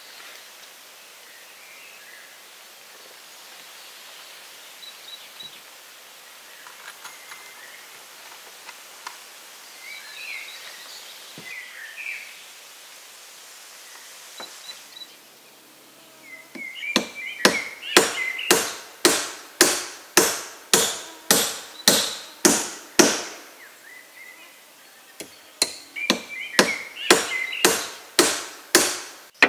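Rapid, sharp blows of a hand tool, about two a second: a run of about a dozen starting a little past halfway, then after a short pause a shorter run near the end.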